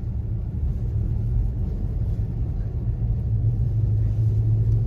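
Toyota Tacoma pickup driving, heard from inside the cab: a steady low rumble of engine and tyre noise, with a low hum that grows louder near the end.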